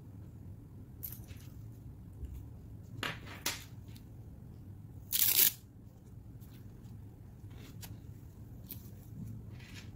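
A nylon ankle strap from a resistance band set being handled, with a few soft scrapes, then a short rip about five seconds in, the sound of its hook-and-loop closure being pulled apart.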